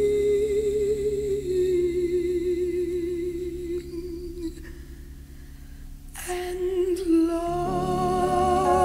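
A woman's singing voice holds a long, wavering note with vibrato over sustained accompaniment, the note fading out about halfway through. Near the end new wavering notes come in and the accompaniment swells into a fuller chord.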